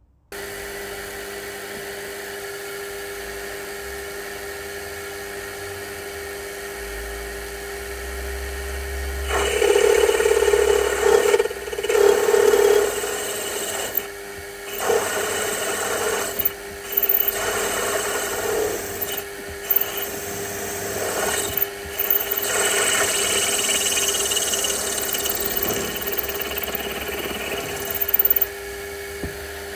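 A drilling machine's motor starts and runs with a steady hum. About nine seconds in, a twist drill begins cutting into the engine's cast base frame, in stretches of a couple of seconds with short breaks between them.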